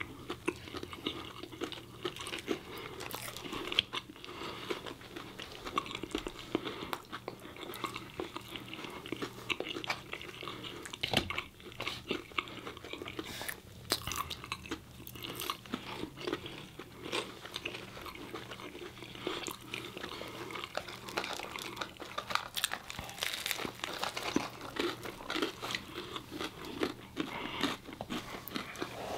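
Close-miked chewing and biting of fried chicken sandwiches and french fries, with frequent irregular crunches and wet mouth sounds from two people eating.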